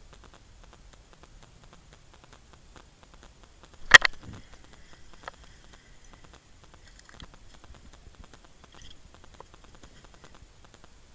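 A single sharp knock about four seconds in, then a few faint clicks, from an ice rod and gear being handled on the ice. A faint, fast crackle runs underneath.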